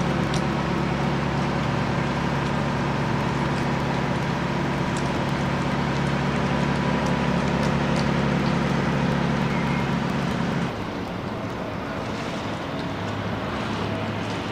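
Low, steady machinery drone that drops away abruptly about eleven seconds in, leaving a quieter hum.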